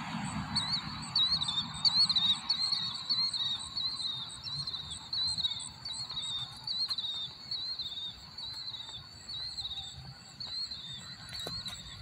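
Birds screeching at night: a long series of short, shrill, high calls, each with a quick wavering dip in pitch. They come two to three a second at first, then space out and grow a little fainter toward the end, over a faint low rumble.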